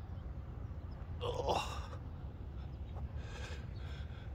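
Steady low wind rumble on the microphone outdoors. About a second and a half in comes a short breathy vocal sound from the person filming, like a gasp or sigh, with a fainter breath near the end.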